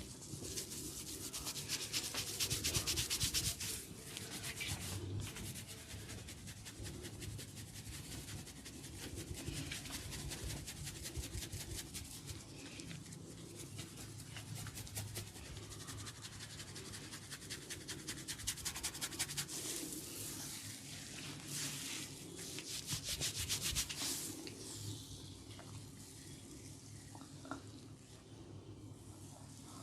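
Fingertips scratching and rubbing an oiled scalp through the hair in quick, fine strokes, coming in several bouts that are loudest a few seconds in and again around twenty seconds in.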